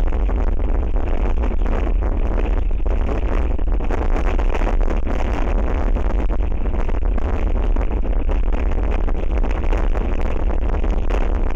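Strong gusting wind buffeting an outdoor microphone: a loud, steady rumbling roar of wind noise.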